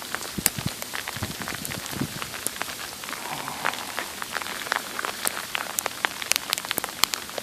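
Sleet pellets falling and ticking on hard surfaces: a dense, irregular patter of sharp ticks over a steady hiss.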